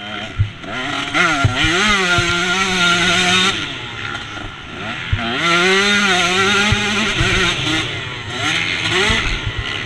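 KTM 125 two-stroke motocross engine heard close up, revving hard: its pitch climbs and holds high twice, dropping off between as the rider rolls off the throttle, with a few short knocks along the way.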